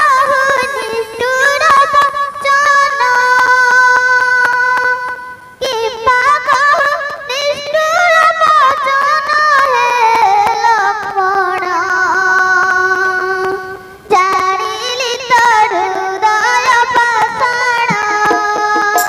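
A high-pitched voice singing a devotional stage-play song, accompanied by held keyboard notes and a steady beat on hand drums. The song pauses briefly twice before going on.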